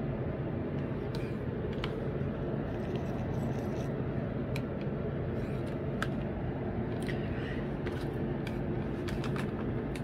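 Scattered small clicks and ticks of jumper wires and connectors being handled on a circuit board, over a steady low hum.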